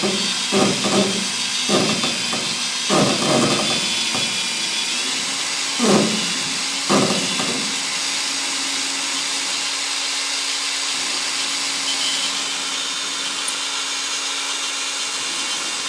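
Makita DHP480Z 18V cordless hammer drill running, with repeated rough rattling bursts over the first half, then running steadily with a low hum. The noise comes from a faulty chuck.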